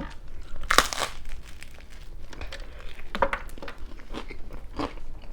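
Close-miked chewing of a bite of thin-crust BBQ chicken pizza, with crisp crackly crunches; the loudest comes about a second in.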